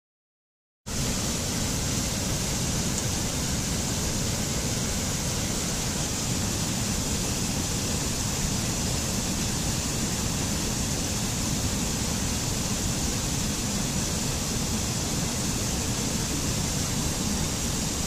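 Steady rush of a rocky mountain stream cascading over small falls. It starts suddenly about a second in.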